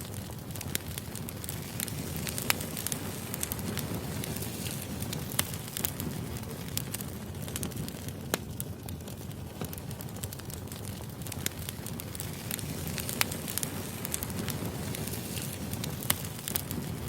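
Burning firewood: a steady low rumble and hiss with sharp crackles and pops at irregular intervals.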